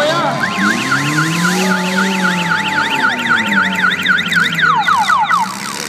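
An emergency-vehicle siren on a rapid yelp setting, rising and falling about four to five times a second, then ending in a few quick falling sweeps. Under it, an engine revs up and down.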